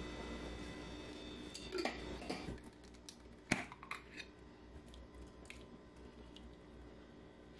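Kitchen handling sounds as jarred tomato sauce and a pouch are emptied into a cooking pot: soft scrapes and a few sharp clicks of the jar against the pot, the sharpest about three and a half seconds in. A faint steady hum fades out about two and a half seconds in.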